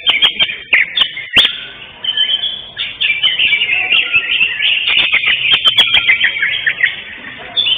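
Cucak hijau (greater green leafbird) song: a dense, continuous stream of rapid chirps, chatters and whistles, broken by a few sharp clicks about a second in and again around the middle.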